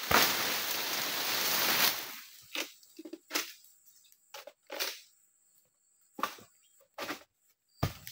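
Oil palm fronds rustle loudly for about two seconds. Then a long-poled egrek sickle knocks and scrapes at the palm in about six separate sharp strokes, the strongest one near the end.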